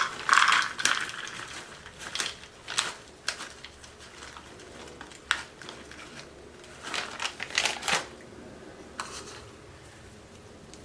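A bag of chopped pecans crinkling as it is handled, in short irregular crackles, loudest in the first second and again around seven to eight seconds in.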